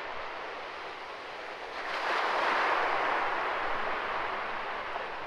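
A steady rushing noise that swells about two seconds in and then eases a little.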